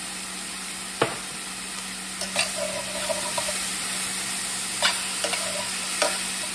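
Green beans, mushrooms and onion sizzling in a stainless steel sauté pan while a spatula stirs them. The steady frying hiss is broken by several sharp clicks of the spatula against the pan.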